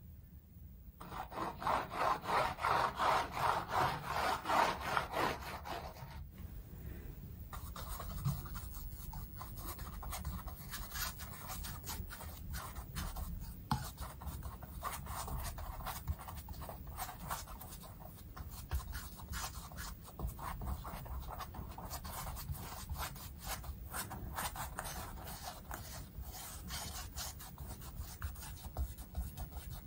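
A paintbrush scrubbing thick black acrylic paint across a stretched canvas: a dry, scratchy rubbing in rhythmic strokes. The strokes are loudest for the first few seconds, stop briefly, then go on more lightly with small ticks.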